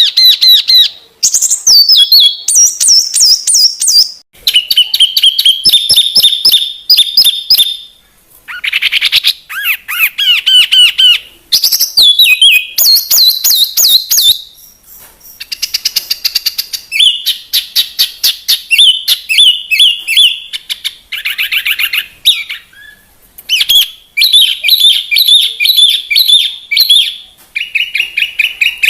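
Cage bird singing a fast, varied, high-pitched song: trains of rapidly repeated chirps and trills, each phrase a few seconds long, broken by short pauses.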